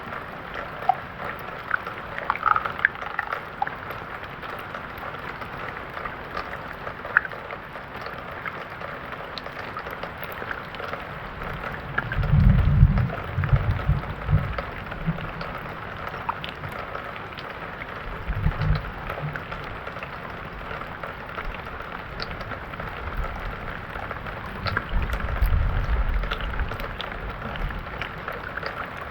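Steady rain falling, with scattered sharp drop ticks. Low rumbles rise about twelve seconds in, briefly again a little later, and once more near the end; the first is the loudest.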